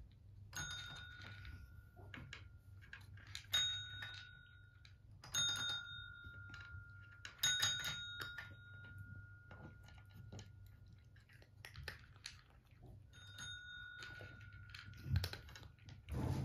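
Desk call bells (counter service bells) being struck by a cat's paw, about five separate dings a few seconds apart, each ringing on for a second or more before fading. A couple of short knocks come near the end.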